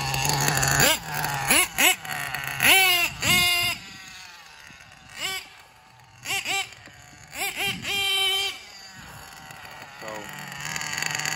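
Nitro engine of a Mugen MBX7 RC truggy, a .28-size Nova 28.8, idling with a steady low hum and blipped in short revs that rise and fall sharply in pitch as the truggy drives away and back. The revs are fainter for a few seconds in the middle.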